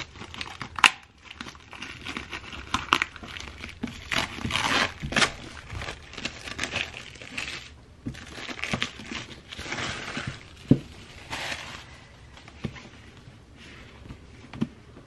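Paper packaging of an Apple headphone box crinkling and tearing as the pull-tab strip is torn away and the wrapping is pulled off, in irregular rustling swishes. A few sharp taps of the box being handled come about a second in, near the eleventh second and near the end.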